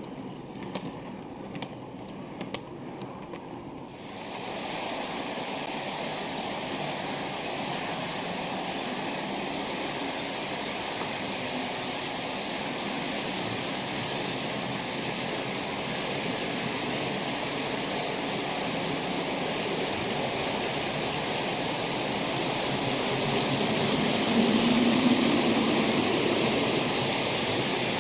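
OO gauge model trains running on the layout's track: for the first four seconds or so, light clicking of wagon wheels over rail joints, then a steady rushing rumble of wheels and motor that slowly grows louder as a model diesel locomotive and its train of tank wagons approach, loudest with a low hum a few seconds before the end.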